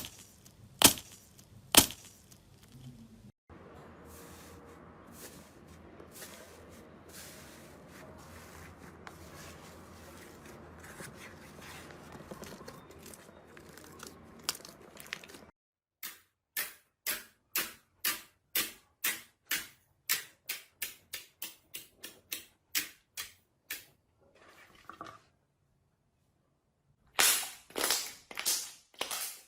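Slime being handled: a few sharp pops, then a stretch of soft, low squishing. After that comes a quick run of pops, about two or three a second, and near the end louder crackling.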